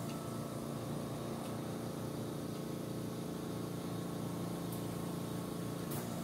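Steady hum of a small motor running, with several fixed tones. Near the end comes a light click of a metal fork against the bowl.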